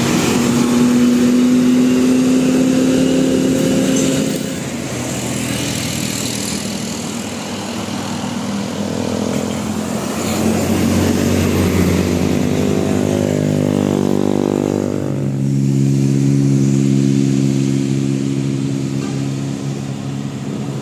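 Telolet-style bus and truck horns holding long steady notes over engine noise. A loud held note sounds for about the first four seconds, then it drops back to engines, and another set of steady horn tones starts about two-thirds of the way in.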